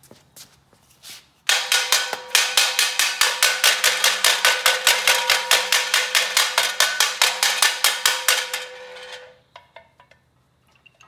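Rapid hammer blows on the flexplate at the back of a small-block Chevy V8, about six strikes a second, each with a metallic ring. The part is stuck after years in place. The hammering starts about a second and a half in and dies away about two seconds before the end.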